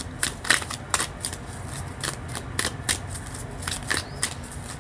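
Tarot cards being shuffled and handled: an irregular run of crisp card snaps and taps, about three or four a second.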